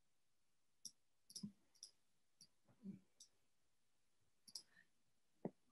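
Faint, irregular clicks of a computer mouse, about eight in all, with a few soft low knocks in between; the loudest is a single knock near the end.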